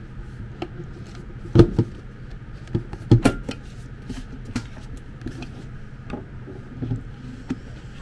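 Plastic clicks and knocks from a stainless-steel electric kettle's handle being handled and fitted back together, with two louder knocks about one and a half and three seconds in, over a steady low hum.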